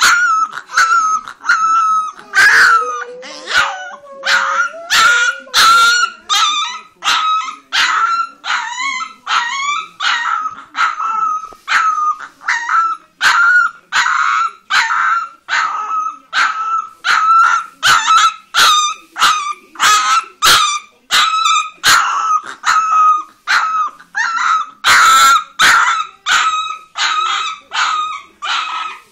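Leonberger puppy barking in high-pitched yelps over and over, about two a second in a steady rhythm. A lower, drawn-out gliding sound runs under the barks a few seconds in.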